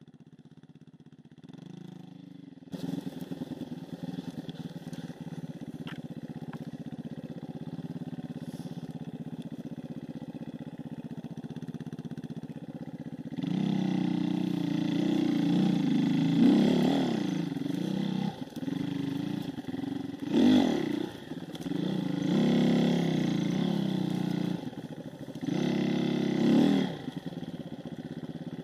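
Dirt bike engine on an off-road ride. It comes in faintly, then runs steadily from about three seconds in. About halfway through it gets louder and revs in repeated surges as the throttle is worked.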